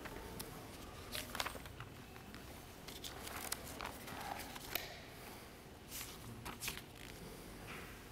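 Faint, scattered clicks, taps and rustles of altar items being handled during the preparation of the gifts at Mass, with a handful of sharper knocks.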